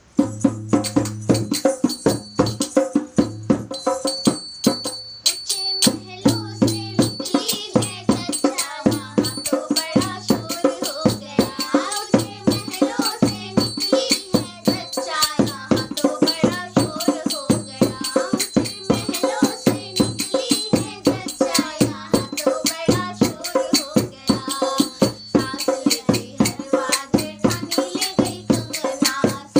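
A woman and a girl singing a jachcha geet, a Hindi folk song for a childbirth, over a steady percussion beat. The beat starts alone, and the singing comes in about six seconds in.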